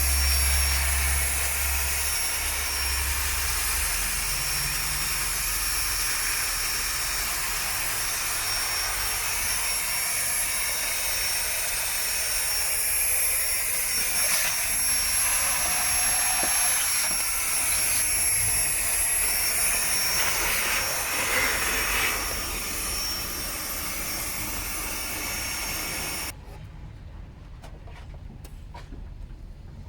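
A workshop machine running with a steady loud hiss and a faint high whine. It cuts off suddenly about 26 seconds in, leaving only small clicks and taps.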